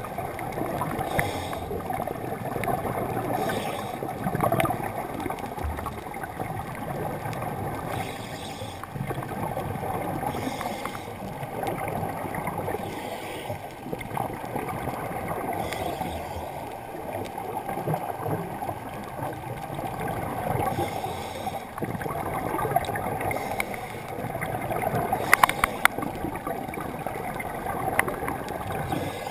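Underwater sound heard through a GoPro's waterproof housing: a steady muffled water rumble, with a soft hiss of a scuba diver's breathing and bubbles coming back every two seconds or so. A few sharp clicks come near the end.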